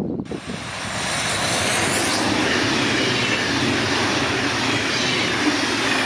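Red S-Bahn Hannover electric multiple unit passing close at speed: a steady rush of wheels rolling on the rails, with a faint whine that glides in pitch. It starts suddenly just after the start and builds over the first second.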